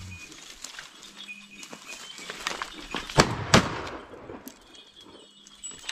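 Shotgun fired twice in quick succession, two loud blasts about a third of a second apart.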